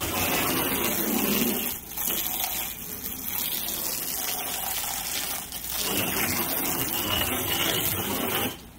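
Garden hose spray nozzle on its full setting, a jet of water spraying and splashing against the side of a travel trailer. It starts abruptly, slackens briefly twice, and cuts off sharply near the end.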